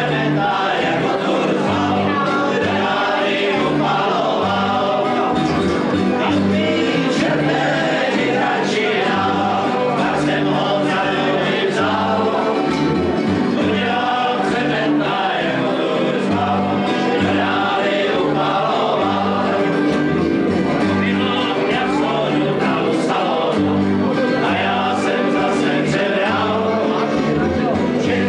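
A group of men singing together, accompanied by strummed acoustic guitars and a plucked upright double bass.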